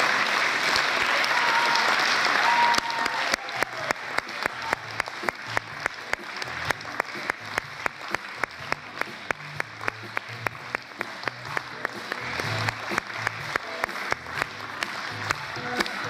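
Audience applause: a dense clatter that, about three seconds in, settles into rhythmic clapping in unison at roughly three claps a second.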